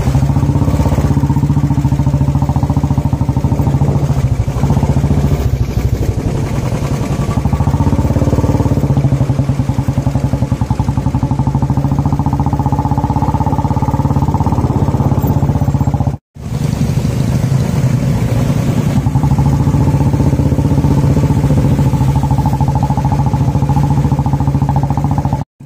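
Motorcycle engine running steadily while riding, heard throughout, with the sound breaking off for an instant about sixteen seconds in.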